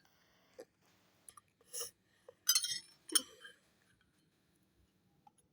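A few light, spaced-out clinks of a drinking glass, the loudest about two and a half and three seconds in.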